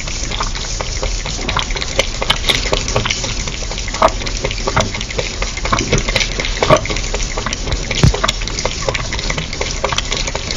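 Cat lapping liquid from a bowl, heard close up: a fast, irregular run of wet clicks over a steady hiss.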